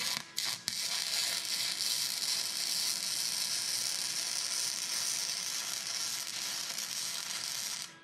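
Wire-feed welder arc on metal tubing: two short starts, then a steady hissing crackle for about seven seconds as a bead is run, stopping abruptly just before the end.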